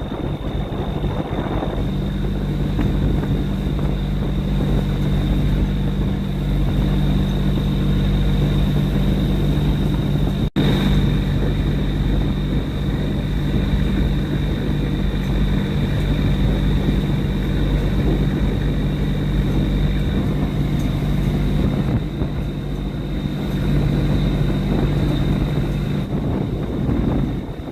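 A boat's engine running steadily at a constant speed, with a thin high whine above it. The sound cuts out for an instant about ten seconds in.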